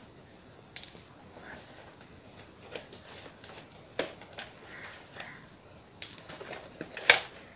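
Hands handling a cardboard packaging insert to free a toy RC car: light rustling with a few sharp clicks and taps, the loudest near the end.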